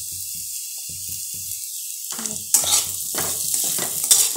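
Diced boiled potatoes sizzling in oil in a kadhai. About halfway through, a metal spatula starts stirring and scraping the pan in a quick run of strokes, two of them louder.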